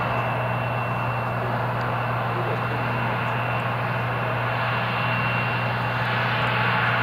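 Bombardier CRJ-900's rear-mounted turbofan jet engines during the landing rollout: a steady rushing jet noise with a thin high whine that stops about six seconds in, growing slightly louder near the end.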